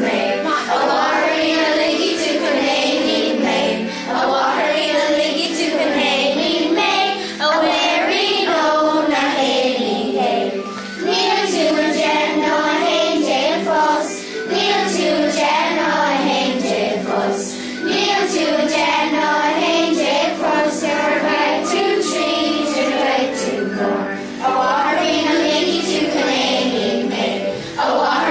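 A song sung by a group of children's voices with instrumental backing, running without a break.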